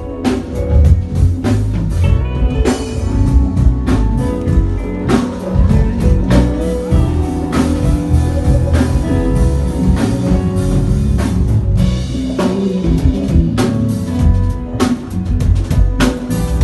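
Live band playing an instrumental at a sound check: guitar over a drum kit, with steady drum hits throughout.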